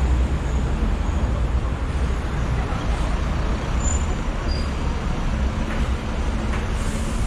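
Steady city road traffic noise, with the low rumble of a double-decker bus running close by.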